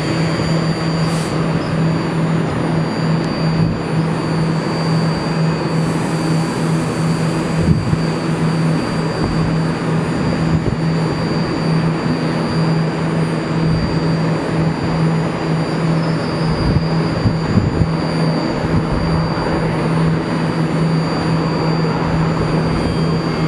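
BART train beside the platform: a steady mechanical hum with a constant low tone over a rushing noise, holding level without rising or falling.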